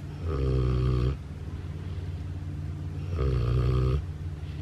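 A sleeping pig, a boar, snoring: two deep, drawn-out snores about three seconds apart, each just under a second long.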